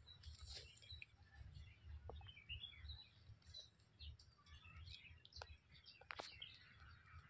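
Faint chirping of birds, with a few small clicks over a low rumble.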